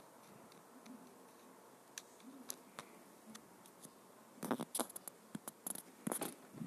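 Faint scattered clicks and taps of fingers on a phone's touchscreen while scrolling, with a quick flurry of them from about four and a half seconds in.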